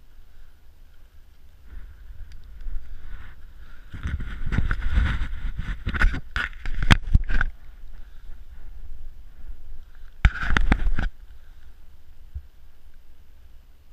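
Rustling and rubbing handling noise from gloves and clothing moving close to the microphone, with several sharp knocks in the middle. It is loudest for a few seconds in the middle and comes again briefly near the end.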